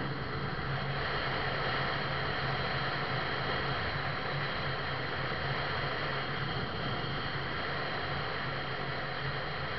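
Steady road noise from a vehicle travelling on a wet highway: a continuous hiss of tyres and wind over a low, even engine hum.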